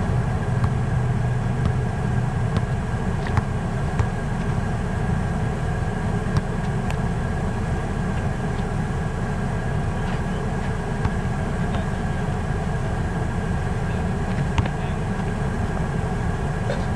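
A few sharp knocks of a basketball bouncing on an asphalt court, over a steady low rumble.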